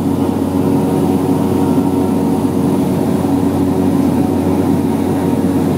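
Light aircraft's engine and propeller, heard inside the cabin in flight: a loud, steady drone with no change in pitch.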